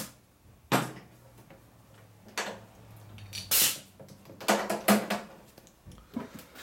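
A series of short metal clanks and scrapes, about six spread over the few seconds, with the longest and brightest scrape about three and a half seconds in.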